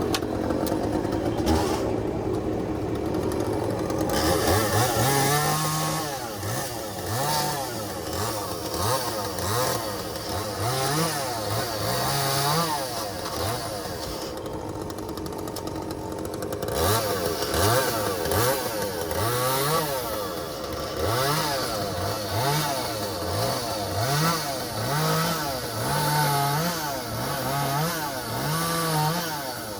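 Echo two-stroke chainsaw cutting logs, its engine revving up and dropping back again and again, about once a second. For the first four seconds an engine runs steadily before the revving starts.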